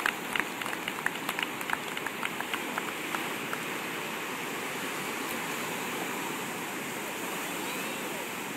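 Ocean surf breaking and washing in steadily around shallow water. A run of short sharp clicks thins out over the first three seconds.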